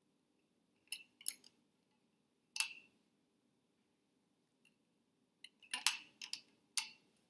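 Elastic bands being stretched over a jam jar lid, snapping and clicking against the lid's rim: a few sharp clicks early, then a quicker cluster of several near the end.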